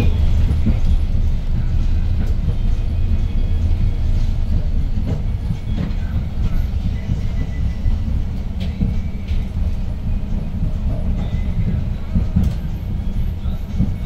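Inside a 2012 Hyundai New Super Aerocity city bus under way: a steady low rumble from its CNG-fuelled C6AE engine and the road, with a few knocks and rattles from the body.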